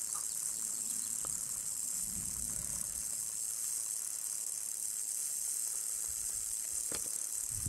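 South American rattlesnake (cascavel) rattling its tail in a continuous high buzz, the defensive warning of a stressed snake. Low bumps from camera handling, and a sharp click about seven seconds in.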